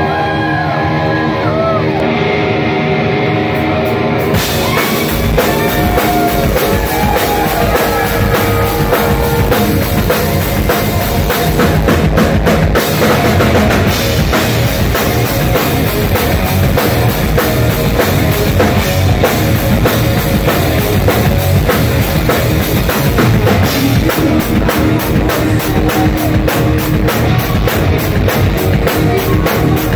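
Live rock band at full volume, heard from the crowd. An electric guitar rings on alone with sustained, bending notes, then the drum kit and the rest of the band come in about four seconds in and play on hard.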